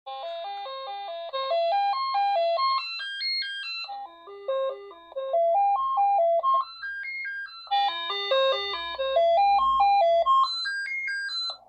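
Commodore 64 SID chip playing the diagnostic cartridge's test melody: fast electronic notes stepping up and down in repeating phrases, heard from a monitor's speaker, cutting off just before the end. The owner is listening for crackling in it, which may mean a faulty SID.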